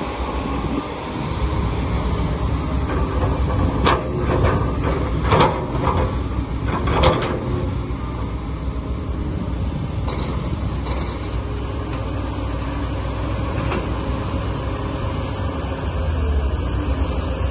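A vehicle's motor running steadily, with a few short knocks about four, five and a half and seven seconds in.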